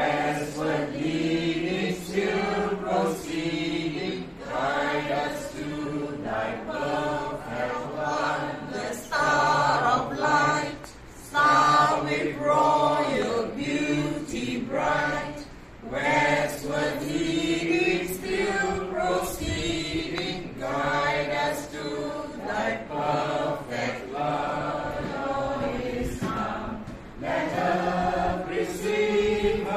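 A small mixed group of men and women singing a Christmas carol together.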